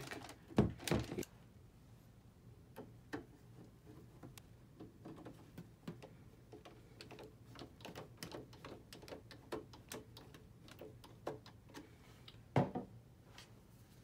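Metal computer case set down and handled on a desk with a few thumps, then a long run of small, irregular clicks and scrapes as the case cover screws are driven back in with a hand screwdriver, with another knock near the end.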